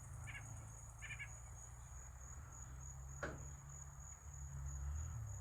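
A steady high-pitched trill of insects, with two brief high chirps from small birds about a third of a second and a second in, and a single sharp click a little past three seconds.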